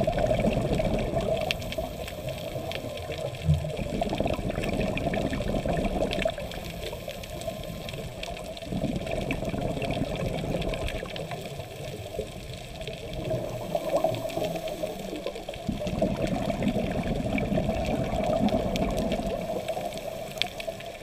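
Underwater sound of a scuba diver breathing through a regulator: a rush of exhaled bubbles swells up every few seconds, over a faint steady crackle.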